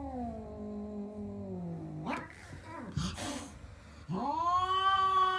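Two domestic cats in a standoff, yowling at each other. A long, low yowl falls in pitch over the first two seconds, two short hissing sounds follow, and a rising, held yowl starts about four seconds in.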